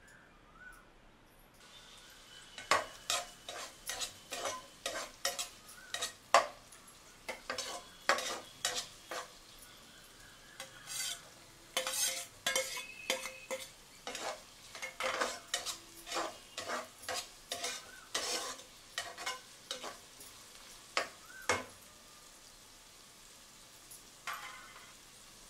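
Chopped onions sizzling in hot oil in a non-stick pot. A utensil stirs and scrapes against the pan in quick, sharp strokes, a few a second, which stop a few seconds before the end.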